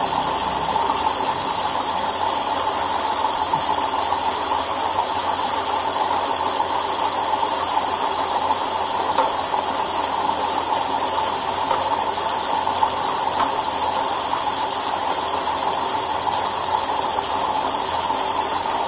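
Steady whirring of a spinning bicycle wheel, running evenly without a break.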